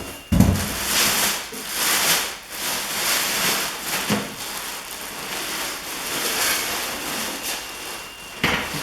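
Packaging being pulled off a new welder, rustling and crinkling in repeated swells, with a thump just after the start and a lighter one about four seconds in.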